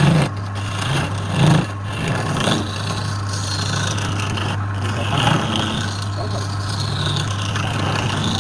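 Wood lathe motor running with a steady hum while a turning tool scrapes the spinning wood in uneven passes, with a few louder catches.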